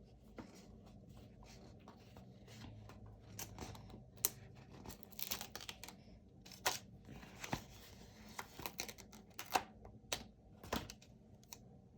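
Faint, scattered ticks and soft rustles of letter stickers being peeled from their sheet and the paper sheets being handled.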